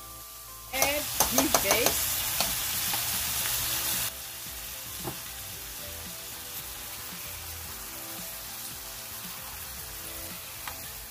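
Shaved beef sizzling in hot oil in a skillet as it is stirred with a spatula. About a second in, a loud burst of sizzling starts, with the spatula clicking and scraping against the pan. About four seconds in it drops suddenly to a steadier, quieter sizzle.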